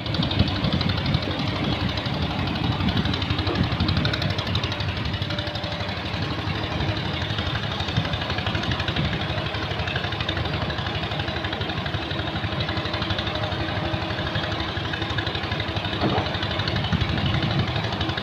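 Heavy-equipment diesel engine running steadily, with a fast, even chugging.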